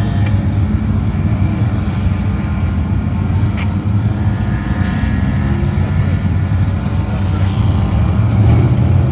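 Engines of a queue of race cars running and pulling away one after another in a continuous low drone.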